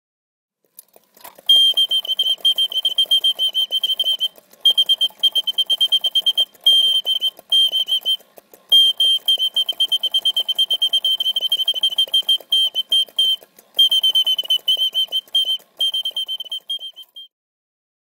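Singing-bird automaton of an 18th-century Pierre Jaquet-Droz enamelled snuffbox: a click about a second in, then a high mechanical birdsong from its bellows-driven whistle, fast warbling trills in phrases broken by short pauses over a faint whirr, stopping shortly before the end.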